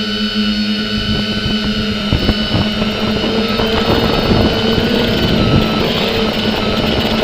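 Multirotor drone's electric motors and propellers whining at a steady pitch, with wind buffeting the microphone in gusts from about a second in.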